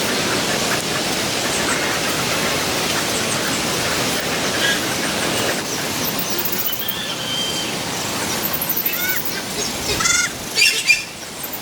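Birds chirping outdoors over a steady rushing background noise, with a quick run of louder chirps about ten seconds in.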